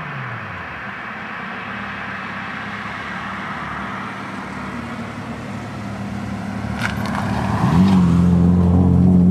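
Ford Probe GT exhaust as the cars drive: an engine note falls away at the start. About seven and a half seconds in, a car's exhaust note rises and then holds steady and loud as it comes close.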